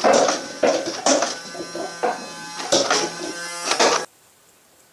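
A battery-powered toy gun's electric motor buzzing steadily, with several sharp bursts over it. The buzz cuts off suddenly about four seconds in, followed by a single click near the end.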